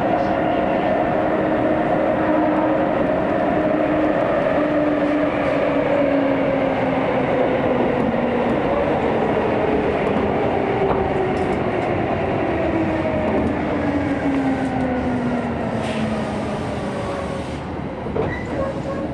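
Hokuso Railway 9000-series subway train running in a tunnel, heard from inside the car: wheel and running noise under a motor whine of several pitches that falls steadily as the train brakes into a station. A few sharp clicks come near the end as it slows.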